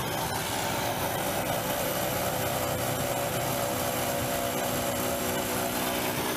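City street traffic: a steady din of vehicle engines running and passing, with engine tones that drift slightly lower in pitch partway through.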